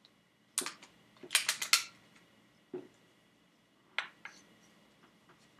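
Sharp clicks and clacks of a BB gun's mechanism being handled: one about half a second in, a quick run of four or five at about a second and a half, then single clicks near three and four seconds.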